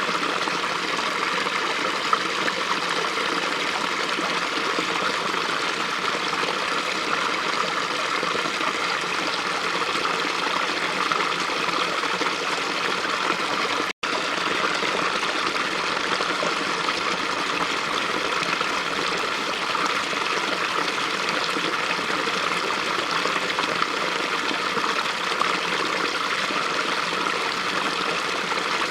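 Small stream running steadily, a continuous rushing and trickling of water. The sound drops out for a split second about halfway through.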